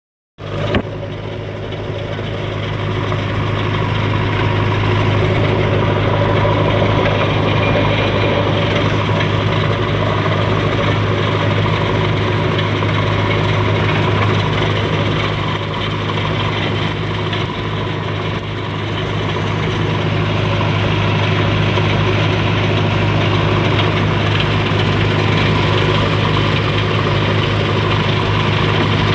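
Heavy recovery truck's engine running steadily under load while it drives the crane winch, easing slightly midway and picking up again.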